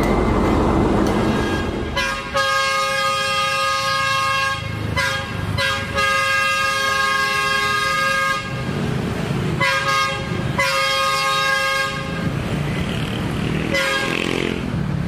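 Diesel locomotive horn sounding three long multi-tone blasts with short toots between them, over the low rumble of the locomotive's engine, which continues alone near the end.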